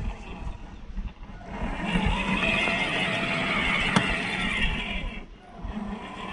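WPL B36 Ural RC truck's 370 electric motor and metal two-speed gearbox whining as the truck crawls over rock. The whine swells from about a second and a half in, holds steady for roughly three and a half seconds, then drops away. A single sharp click comes near the middle.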